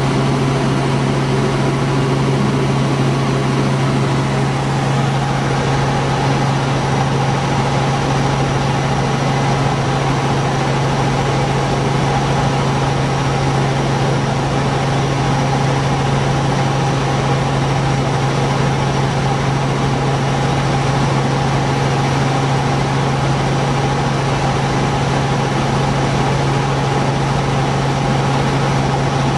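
Helicopter cabin noise in cruise flight: the engine and rotors make a loud, steady drone, a constant low hum over a dense rushing noise, unchanging throughout.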